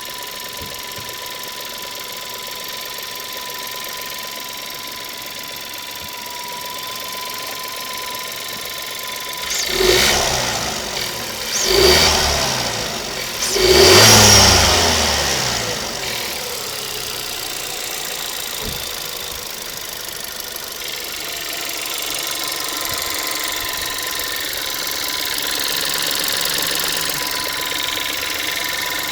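Škoda Fabia 1.2 TSI turbocharged four-cylinder petrol engine idling, revved up three times in quick succession about a third of the way in and then settling back to idle. Under it runs a rattle that the owner likens to a chain rattling and doubts is normal for a new car.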